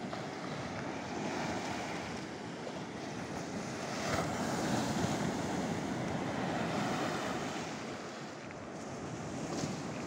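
Sea waves washing against a rocky shore in a continuous rush that swells about four seconds in and eases near eight seconds, with wind on the microphone.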